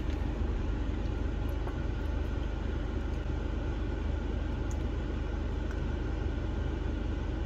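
Skoda Superb 2.0 TDI four-cylinder diesel engine idling steadily, being warmed up for an oil change.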